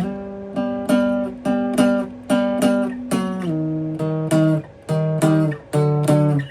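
Solo improvised guitar: chords strummed in a steady rhythm, a few strokes a second, moving between a handful of chords.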